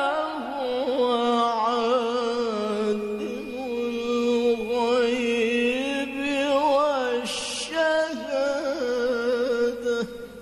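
A male qari reciting the Qur'an in the melodic tilawah style. A single voice sings long held notes with quick, wavering ornaments, and the phrase ends about ten seconds in.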